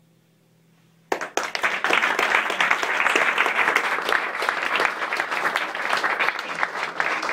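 A faint last note dies away, then audience applause breaks out suddenly about a second in and carries on as dense clapping. One pair of hands is clapping right by the microphone.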